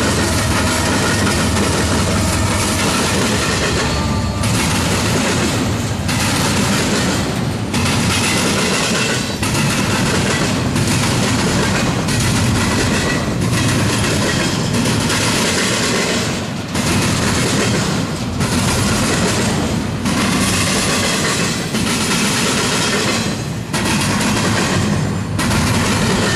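Double-stack intermodal container cars of a freight train rolling past close by at speed, a continuous loud rumble and clatter of wheels on rail. The sound dips briefly every second or two.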